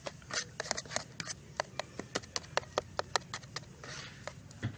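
Quick, irregular clicks and taps, about five a second, from adding duck egg white to the soaked pellet fish-bait mix and working it by hand, with a brief soft rustle near the end.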